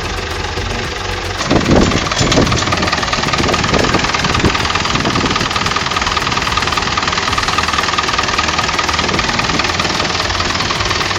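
David Brown 1490 tractor's four-cylinder diesel engine running shortly after starting, loud and steady, with a steady whine joining about a second and a half in.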